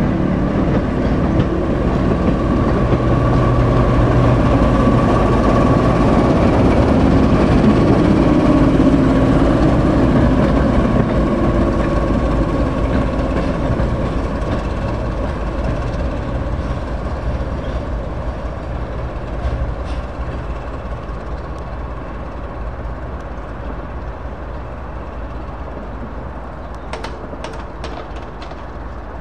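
British Rail Class 08 diesel-electric shunter's engine running as it hauls a short passenger train, with wheels clattering on the track. The sound is loudest about a third of the way in, then fades steadily, with a few sharp clicks near the end.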